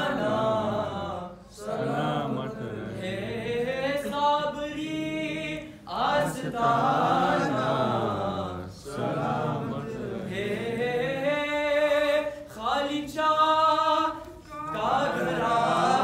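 A group of men chanting a Sufi devotional recitation together in unison. The sung phrases last a few seconds each, with short breath pauses between them.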